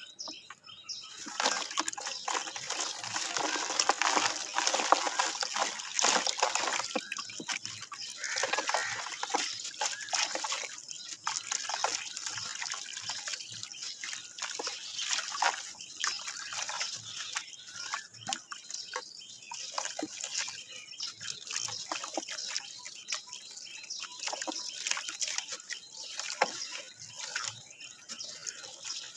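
A block of dry red dirt crumbling in the hands, with dense crackling for the first ten seconds or so, then sparser crackles and clicks. Crumbs and powder fall and splash into a tub of water.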